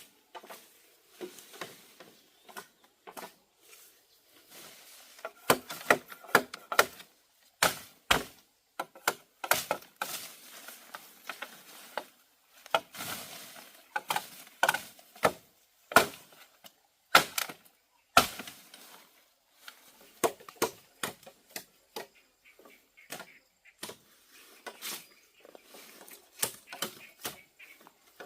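Irregular hard knocks and chops on wood, with some strikes leaving a short hollow ring. They come thickest in the middle stretch, up to a few a second, and are sparser near the start and end.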